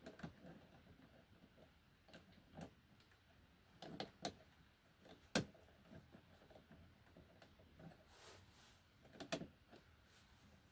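Sparse faint clicks and knocks over near silence, with a sharp click about five seconds in.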